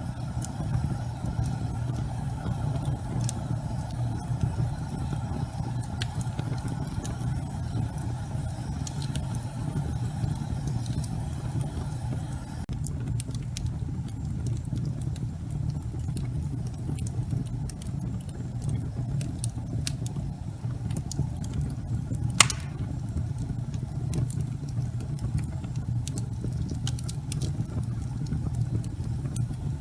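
Wood logs burning in a fireplace: a steady low rumble of the flames with scattered sharp crackles and pops, one louder pop about two-thirds of the way through.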